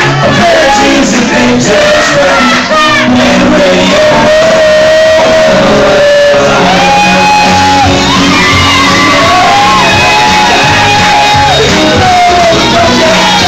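Loud amplified music with a voice holding long sung notes that glide between pitches, and people shouting along.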